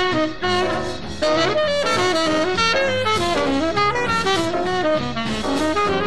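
Jazz music with saxophone and brass playing melody lines over a steady low bass pattern.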